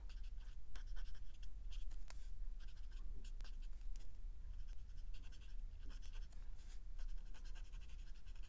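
Alcohol marker (Copic, colour B01) dabbing short, quick strokes onto paper: an irregular run of soft scratchy taps over a faint low hum.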